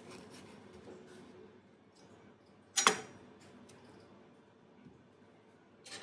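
Chef's knife scraping softly as it cuts around a ripe avocado, then one sharp clack about three seconds in as the steel knife is laid on the bamboo cutting board. Near the end, a smaller, sharper sound as the avocado halves are twisted apart.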